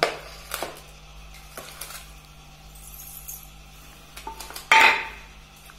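Stainless-steel bowl and metal kitchenware clinking and knocking as they are handled: a few light knocks, then one louder metallic clatter with a short ring near the end.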